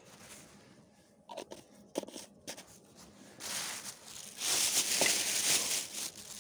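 A few sharp clicks from a small plastic box being handled, then a plastic bag rustling and crinkling close by, loudest about four to six seconds in.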